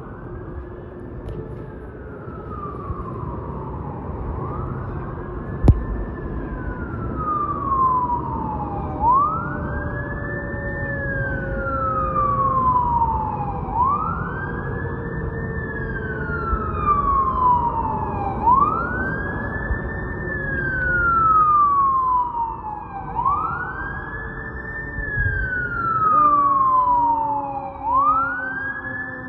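Fire truck siren wailing as the truck approaches. Each cycle rises quickly and falls slowly, repeating about every four and a half seconds and growing louder toward the end. There is one sharp knock about six seconds in.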